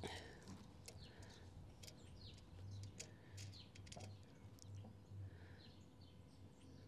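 Faint outdoor birdsong: several birds chirping in short calls, over a faint low hum.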